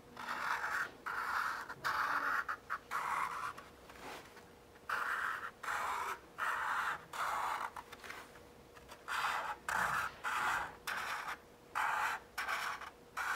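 Felt-tip marker drawing on a paper plate: short scratchy strokes, about two a second, each one a leg of a zigzag line, with a couple of brief pauses between runs.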